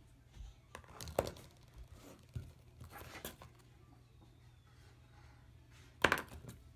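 Squeezable ointment tubes being picked up and handled, with crinkling from the tubes and light knocks as they are set down on a countertop, the loudest knock about six seconds in.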